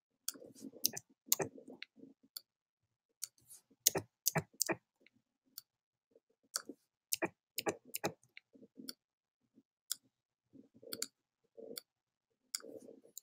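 Irregular computer mouse clicks and keyboard key presses, single and in quick pairs, with short soft rubbing sounds between them.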